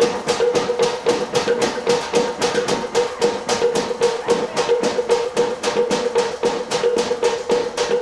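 Rapid, steady drumbeat, about five even strikes a second, accompanying a Polynesian group dance.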